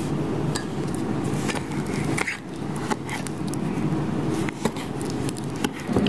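Metal spoon stirring thick batter in a mug, scraping and clinking against its sides in a scatter of light clicks.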